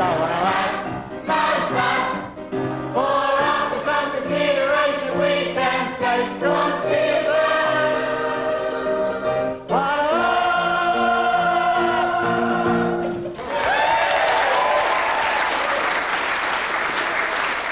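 A group of children and adults singing together in chorus, ending on a long held note. About thirteen seconds in the singing stops and applause follows.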